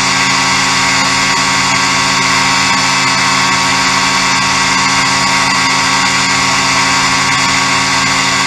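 Ultralight aircraft engine and propeller running steadily in cruising flight, a loud, unbroken drone of many steady tones with a rushing hiss over it.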